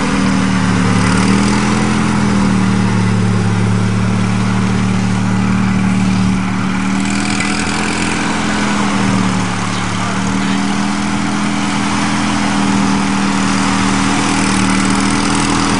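Argo eight-wheel amphibious ATV's engine running steadily as the machine drives through a pond, its pitch dipping briefly about a second in and again around nine to ten seconds in.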